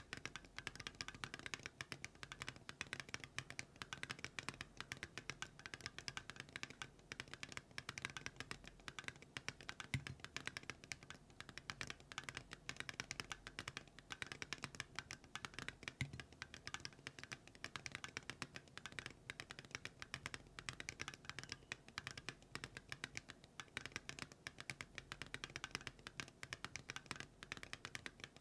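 Typing on a Keynetix Kelvin mechanical keyboard with Geon Raw Zero switches and Awekeys metal keycaps: a clacky sound, with rapid, continuous keystrokes. Two deeper, louder strokes come about ten and sixteen seconds in.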